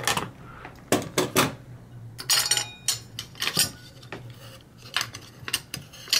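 Metal clicks and knocks from a 1956 Bolex H-16 Reflex 16mm camera being handled: its side door unlatched and lifted off and the spool shafts and film-path parts inside touched. The sharp clicks come irregularly, about ten of them, a few in quick pairs.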